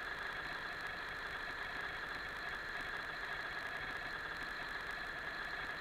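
Steady mechanical hum with a constant high whine, unchanging throughout.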